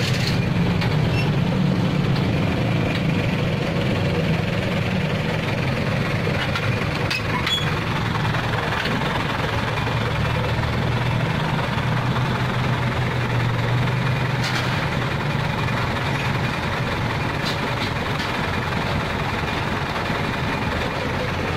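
Truck diesel engine running steadily with a low rumble. Its note drops a little about nine seconds in and lifts again some seconds later.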